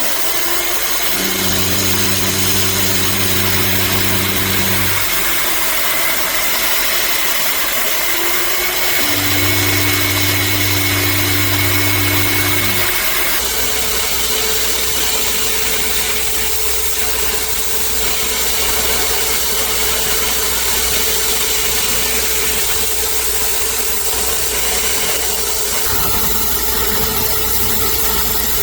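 CNC-converted metal lathe running its program, step-roughing the face of a 6061 aluminium hex blank: a steady machine noise throughout. A low hum comes and goes twice in the first half, then a steady higher tone holds from about halfway.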